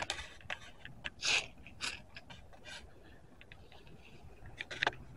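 Footsteps crunching through dry grass and fallen leaves, a few steps in the first couple of seconds, mixed with small clicks and scrapes of the handheld camera.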